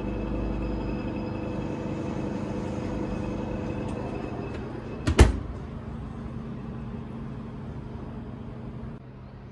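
Electric oven running with a steady hum, its door swung shut with one loud bang about five seconds in.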